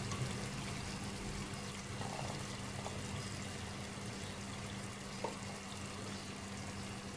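Chicken curry gravy simmering in a wok over a low flame: a faint, steady bubbling, with one soft pop about five seconds in.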